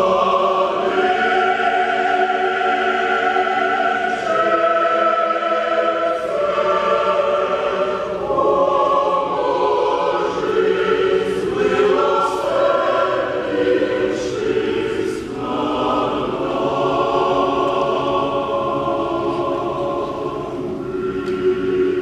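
Mixed choir of men's and women's voices singing sustained chords, coming in loudly right at the start.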